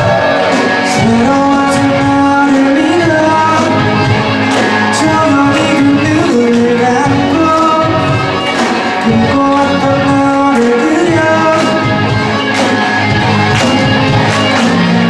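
A live rock band playing a song: a singer over electric guitars, bass, keyboard and a drum kit with regular cymbal strokes.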